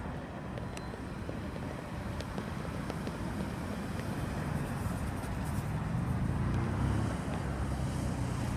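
Freight train rolling past: a steady low rumble with a few faint clicks, and a low engine drone that grows louder over the last few seconds.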